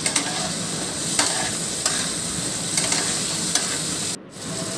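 Diced potatoes sizzling in hot oil in a non-stick kadhai, with a metal spatula clicking and scraping against the pan as they are stirred. The sizzle drops out briefly near the end.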